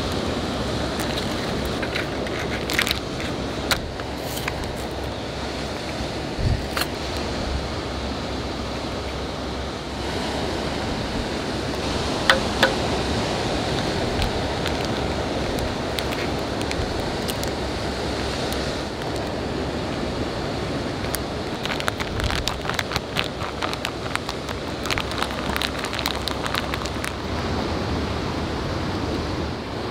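Plastic pancake-mix pouch being torn open, handled and rustled in short crackles, with an egg cracked into it about twelve seconds in. Behind it, sea waves wash steadily on the shore.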